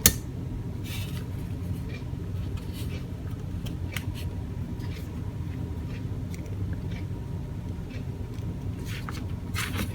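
The stiff trigger switch of a vintage Thor electric drill snapping with a sharp click, followed by a few fainter clicks and knocks as it is worked, over a steady low hum.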